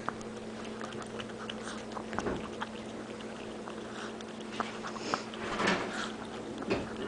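Chihuahua puppy licking ice cream: a string of quick, faint, wet tongue clicks and smacks at an irregular pace.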